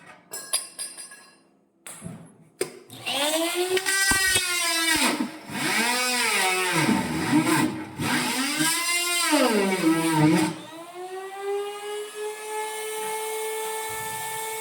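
Electric drill boring a hole through a steel tank: starting about three seconds in, the motor's whine sags and recovers in pitch again and again as the bit bites into the metal, then runs at a steady pitch for the last few seconds.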